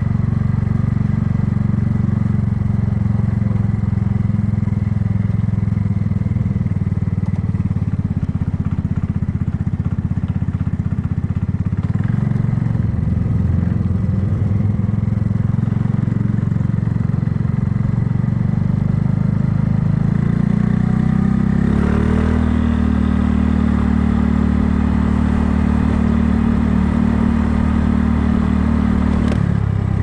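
Kymco People scooter's engine running at low riding speed, then revving up a little past two-thirds of the way through and holding a higher, steady note until easing off near the end.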